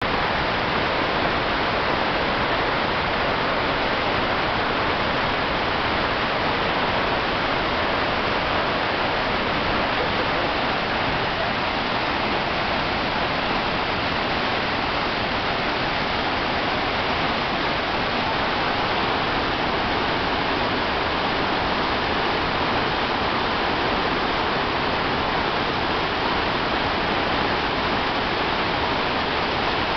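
Murchison Falls on the Nile: a huge volume of water forced through a narrow rock gorge, making a steady, unbroken rush of white water.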